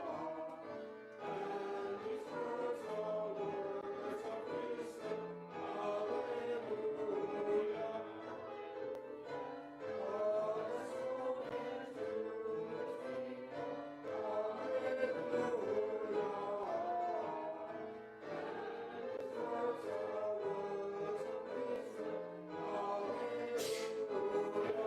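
A choir singing a hymn in sustained phrases a few seconds long, with short breaks between them.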